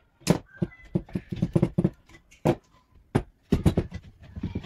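Irregular series of sharp knocks on wooden furniture, some coming in quick runs of three or four strikes.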